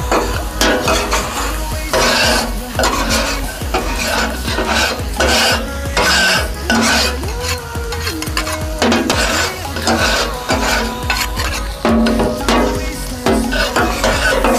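Two flat metal spatulas clattering and scraping on a large flat tawa griddle while chicken masala sizzles and fries on it, in quick, irregular strikes.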